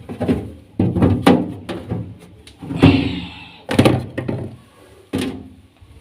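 A series of knocks and thuds, about half a dozen at uneven spacing, as food containers and produce are taken out of a refrigerator and set down, with a brief rustle about halfway through.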